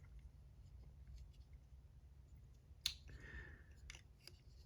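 Near silence with faint handling of a plastic action figure: one sharp click about three seconds in, a brief faint rustle after it, and a couple of faint ticks near the end.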